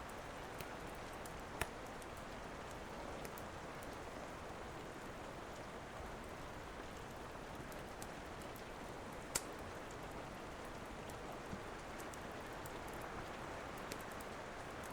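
Steady rain falling, with a wood fire crackling: a few sharp pops stand out, the loudest about a second and a half in and again near the middle, plus fainter ticks in between.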